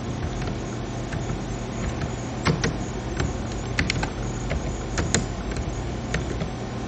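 Typing on a computer keyboard: scattered, irregular key clicks, sometimes two in quick succession, over a steady low hum.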